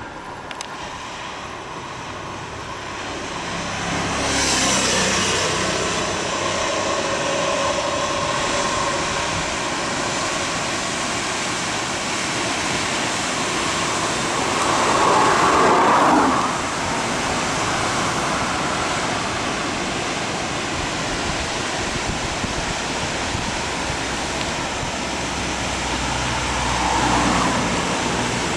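Steady rushing noise of surf and wind, swelling louder three times: about four seconds in, near the middle, and near the end.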